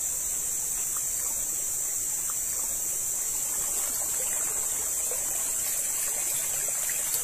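Rainforest ambience: a steady high-pitched hiss over trickling water, with a few faint ticks.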